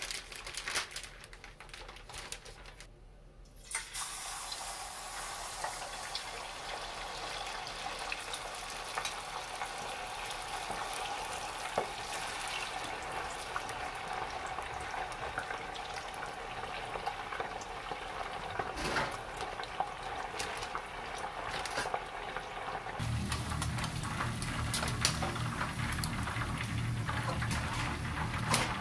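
Chicken deep-frying in a pot of hot oil: a steady sizzle that starts abruptly about four seconds in. A low hum joins in near the end.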